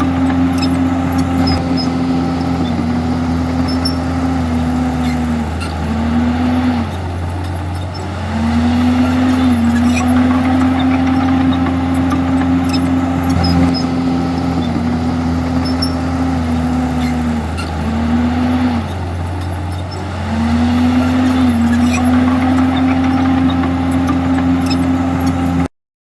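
Komatsu D51EX bulldozer's diesel engine running steadily under work. Its pitch sags twice, then climbs back, and the sound cuts off suddenly just before the end.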